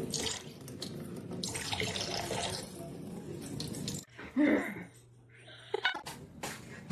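Water running, like a tap into a sink, for about four seconds; then it stops abruptly and a brief loud pitched cry follows.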